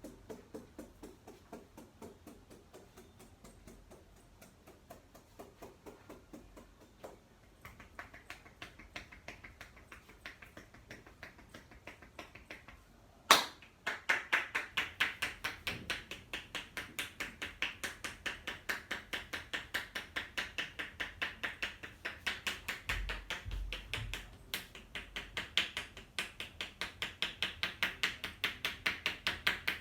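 Massage strikes of hands on a person's body: rapid, rhythmic tapping at about three to four strikes a second. The tapping is soft at first and becomes much louder after a single sharp click about 13 seconds in.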